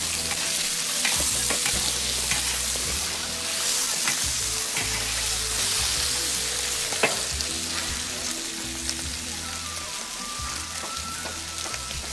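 Soft-shell turtle pieces, salted meat and scallions sizzling in a large wok while a metal wok spatula stirs and scrapes them, with several sharp knocks of the spatula on the wok, the clearest about seven seconds in. The sizzle eases a little in the last few seconds.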